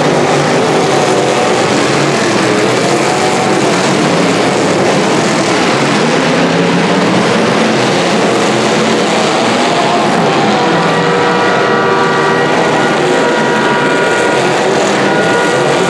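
Demolition derby car engines running and revving hard, loud and continuous, their pitch wavering up and down. About ten seconds in a steady held tone joins them.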